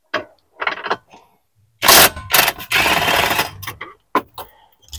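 Cordless impact driver on a socket extension undoing a steering-column mounting bolt. After a couple of brief blips, it runs loudly for about two seconds in the middle.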